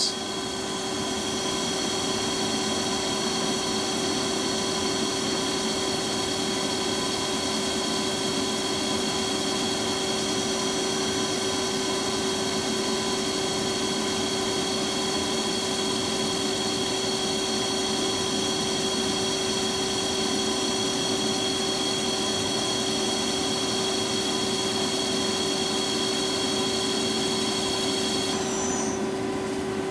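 Lucas 542B-84 horizontal boring mill's spindle drive running steadily at 50 RPM in the lowest of its three gearbox ranges: a steady hum with a high whine on top. Near the end the whine drops away with a brief falling tone while the hum carries on.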